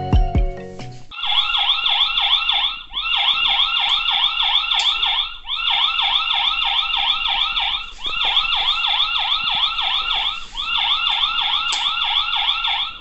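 Arenti OP1 security camera's built-in siren sounding its motion-detection alarm: a fast electronic warble, about six sweeps a second, starting about a second in and repeating in runs of about two seconds with short breaks.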